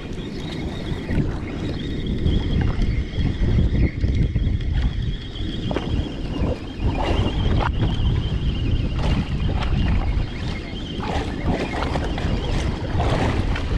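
Wind buffeting the microphone aboard a boat at sea, a steady low rumble, with a faint high whine through the first nine seconds or so and scattered knocks and clicks from about six seconds in.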